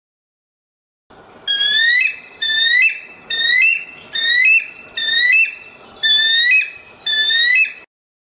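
An animal calling in a series of about seven whistled calls, roughly one a second, each rising and then stepping up to a higher pitch; the calls begin about a second in.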